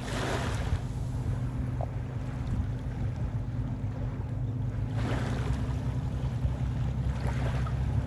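Small waves washing up on a sandy beach, the hiss of the wash swelling at the start, about five seconds in and again near the end, over a steady low hum.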